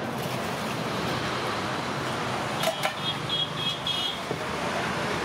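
Steady roadside traffic noise, with a quick run of short, high-pitched beeps about two and a half seconds in, over a few sharp clicks.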